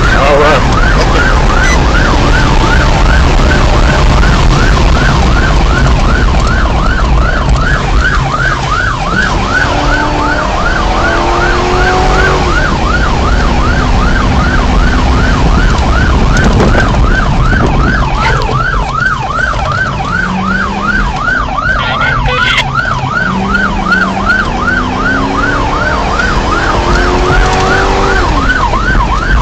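Police car siren on a fast yelp, sweeping up and down about three times a second, heard from inside the cruiser. Under it, the car's engine climbs in pitch as it accelerates, twice, over steady road rumble.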